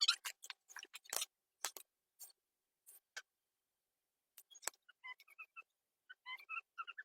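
Scattered sharp clicks and taps of hands and small tools working on plastic toy-car parts, most of them in the first three seconds, with one more about four and a half seconds in.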